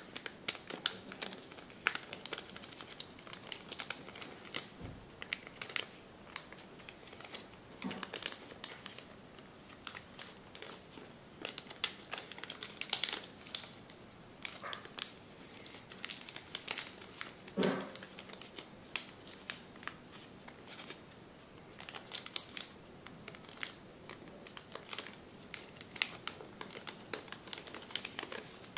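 Origami paper rustling and crinkling as hands fold and shape a partly folded model, in quick, irregular small crackles with a few louder ones.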